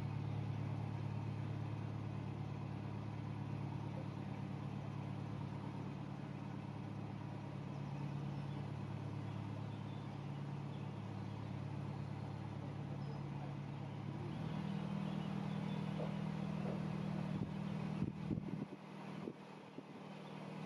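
Narrowboat's diesel engine running steadily under way, a low hum whose note rises slightly about two-thirds of the way through. Near the end a few knocks come through and the hum briefly drops away.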